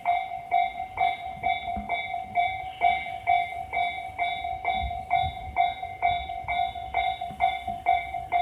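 Japanese level-crossing warning bell ringing its electronic two-tone ding about twice a second, steady and even. Under it runs the low rumble of a Tobu 30000-series electric train passing over the crossing, heaviest around the middle.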